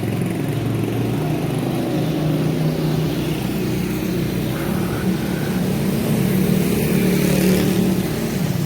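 Street traffic: motor vehicle engines, motorcycles among them, running close by in a steady drone that swells a little near the end.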